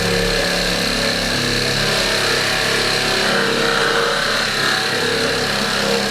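Handheld power tool running steadily, a motor whine over a dense, rough hiss.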